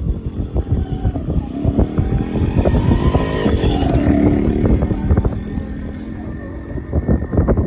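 Wind buffeting the microphone, with a motor engine passing close by: it grows louder to a peak around the middle and then fades away.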